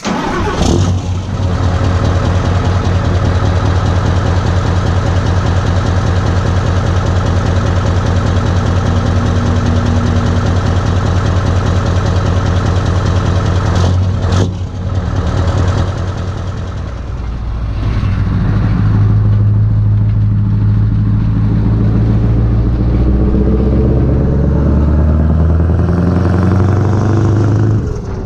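Scania R500 V8 diesel engine heard through an open, straight-piped exhaust, running loudly and steadily. About halfway it dips briefly, then it climbs gradually in pitch over the last ten seconds as it revs up.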